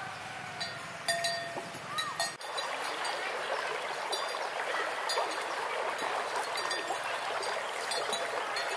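A few short whistled bird calls over woodland ambience, then, from about two and a half seconds in, the steady babbling rush of flowing river water with occasional high chirps over it.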